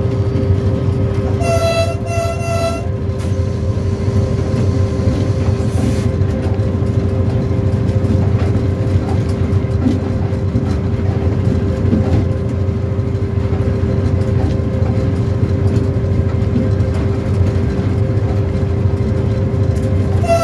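Diesel locomotive running at speed, a steady engine drone with rail rumble beneath it. About a second and a half in, the locomotive horn gives two short blasts.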